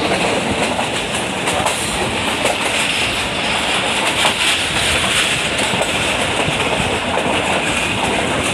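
Millat Express passenger train running at speed, heard from on board: a steady rumbling rush of the carriages with the wheels clicking over rail joints now and then.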